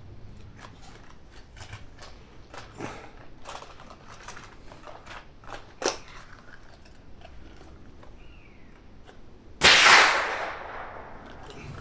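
A single shot from a Hammerli Force B1 .22 LR rifle fitted with a sound moderator, about ten seconds in, its echo dying away over a second or so. Light clicks come before it, the sharpest about six seconds in.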